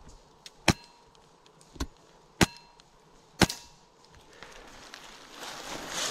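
Four sharp single shots from an HPA airsoft rifle, unevenly spaced over about three seconds. A rustling of dry leaf litter follows near the end.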